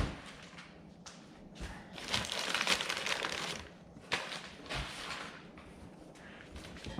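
Packaging rustling and crinkling as exhaust parts are unpacked, with a thud at the start and two knocks about four and five seconds in.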